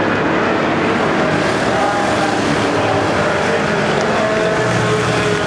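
A pack of short-track racing pickup trucks' engines running at speed around the oval, several engine notes overlapping in a steady, loud drone.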